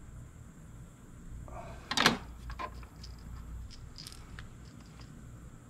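A single sharp knock about two seconds in, then a lighter click and a few faint ticks: small objects being handled on a work table, over a low steady hum.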